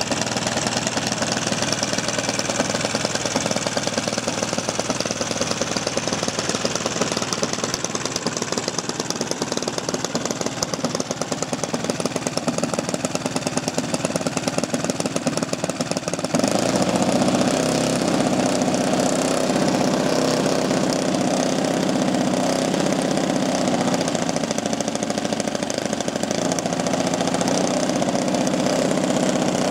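Kolm EZ 65 four-stroke petrol engine running in a large model Focke-Wulf Fw 190 D, its propeller turning. About sixteen seconds in, the sound changes abruptly to a lower, steadier run with stronger deep tones.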